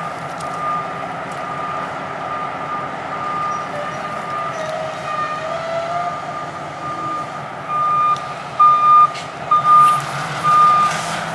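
Repeating electronic beeping, one steady tone a little more than once a second, growing louder in the second half, over the low steady running of a diesel locomotive. A few loud bursts of noise come near the end.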